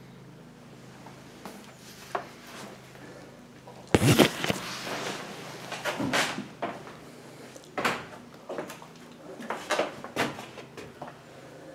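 Footsteps and scattered wooden knocks on bare wooden floorboards, the loudest cluster about four seconds in, then irregular thumps, over a faint steady hum.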